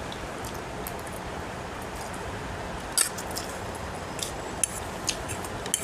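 Metal fork clicking and scraping against a plate while gathering noodles: a handful of sharp ticks, the loudest about three seconds in, over a steady background hiss.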